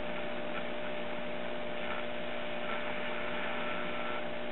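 Silvertone model 5 tube radio's speaker giving a steady hiss with mains hum, tuned between AM stations with no programme coming through. A faint thin whistle comes in briefly near the end.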